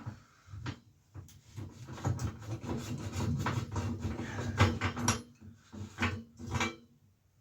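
Hand tools working on a bicycle: uneven rubbing and scraping strokes broken by sharp knocks, as stiff, tight parts are worked loose.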